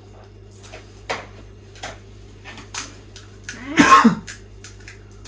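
A few light, sharp cracks of crisp puris being broken open by hand, spaced about a second apart, and about four seconds in a person briefly clearing their throat, the loudest sound.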